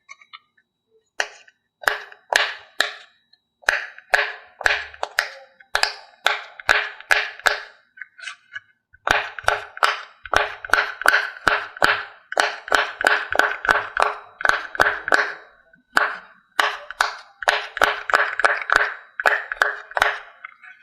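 Glossy slime being pressed and poked, making sharp clicking pops a few times a second in irregular runs, with short pauses between the runs.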